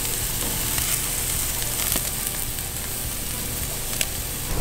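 Ribeye steaks searing on the hot grates of a gas grill: a steady sizzle with a few small pops and crackles.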